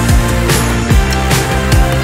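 Background music with a steady beat of deep drum hits, about two a second.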